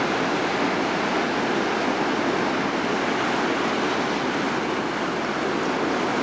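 Ocean surf washing on the shore, a steady even rush with no single wave standing out.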